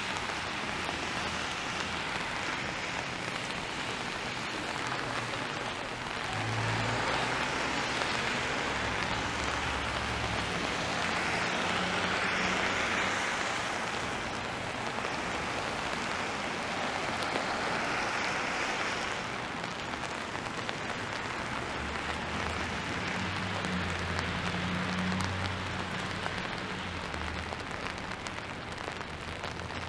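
Steady rain on a wet city street, with traffic passing on the wet road: tyre hiss swells and fades twice, and a low engine hum comes and goes.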